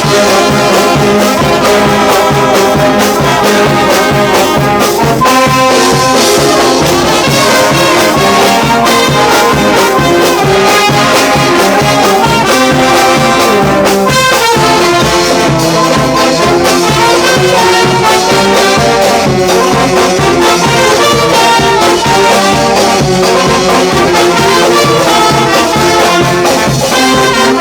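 Brass band playing live: trumpets and trombones carrying a tune over a steady beat.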